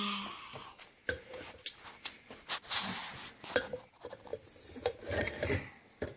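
Metal pliers clicking and scraping against the small threaded metal locking ring and socket of an arm lamp as a child tries to twist the ring off, in a string of short, irregular clicks and rubs.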